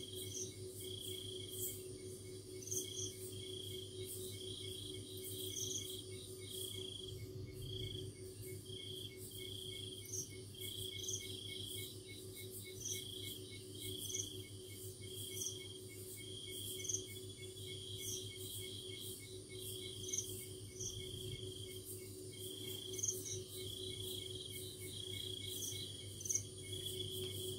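Crickets chirping at night: short pulsed trills, one every second or so, with brief higher chirps in between, over a steady low hum.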